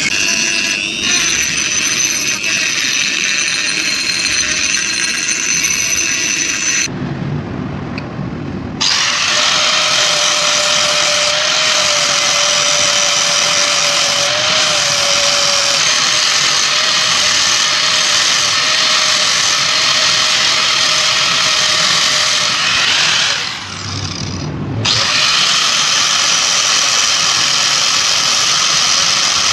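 A small handheld rotary tool with an abrasive bit polishing the inside of a steel hammer head's eye. After about 7 seconds an angle grinder takes over, grinding the hammer head's steel steadily, with a short dip in the sound about two-thirds of the way through.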